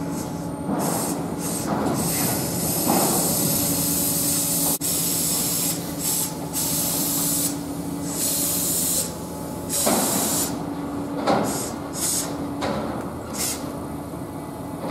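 Seibu 2000 series electric train pulling out of the platform, with a steady low hum and repeated short bursts of compressed-air hiss from its brakes.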